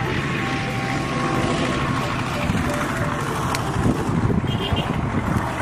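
Background music over a steady rushing noise that turns rougher and more uneven in the second half.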